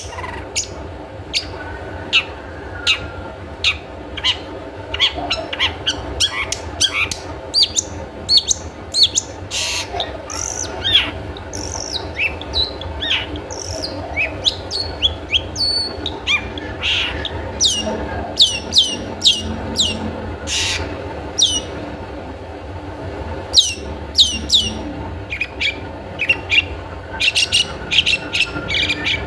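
Long-tailed shrike (cendet) calling in a rapid stream of short, sharp notes, many of them quickly falling in pitch. This is the call used as a lure to set captive shrikes singing. A steady low hum runs underneath.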